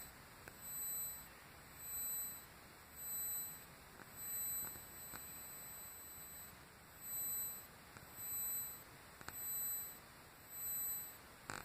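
High-pitched buzzing from a 6 kW Generac propane generator that won't start, coming on and off in short pulses about once a second, with a longer pause midway. A possible clue to the starting fault.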